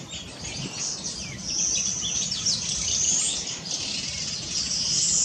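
Yellow-fronted canary singing a fast, continuous song of chirps, trills and quick sliding whistles.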